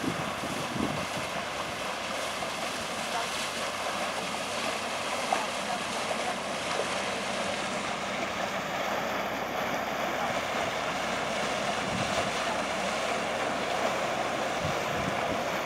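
A motor cruiser's engine running steadily as it passes close by, with its wash moving on the water and wind buffeting the microphone.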